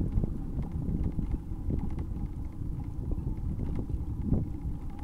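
Wind buffeting the microphone of a camera riding on a moving bicycle: an uneven low rumble, with scattered light clicks and rattles.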